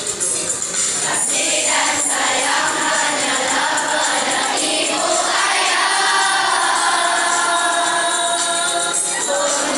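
Background music: a song with several voices singing together over instrumental backing.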